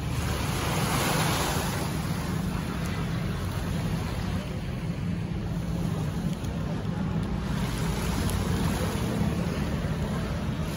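Sea waves washing in over a steady low rumble, the wash swelling about a second in and again near the end.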